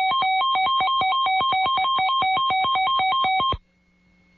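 Electronic alert attention tone: rapid beeps alternating between two pitches, about seven a second, cutting off suddenly about three and a half seconds in.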